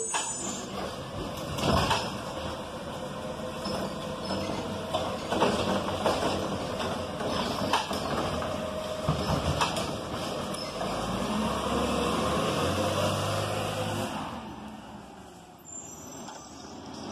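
Crane Carrier garbage truck running as it pulls slowly away down the street, with a few sharp clanks from the truck; the sound fades near the end.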